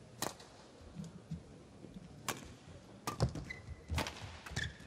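Badminton rally: sharp cracks of rackets striking the shuttlecock, about four in quick succession in the second half, with short squeaks of shoes on the court mat. One more sharp hit comes near the start.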